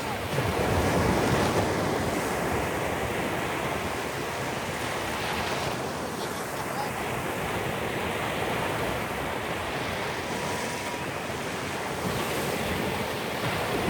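Sea waves breaking and washing ashore as a steady rushing noise, swelling louder about half a second to two seconds in, with wind buffeting the microphone.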